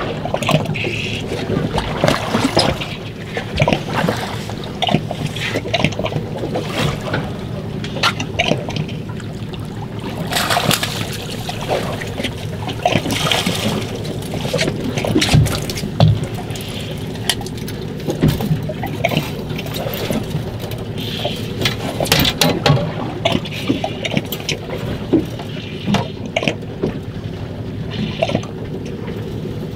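Water splashing and sloshing against a boat's hull over a steady low mechanical hum, with many short knocks and clicks from fishing gear and a landing net being handled.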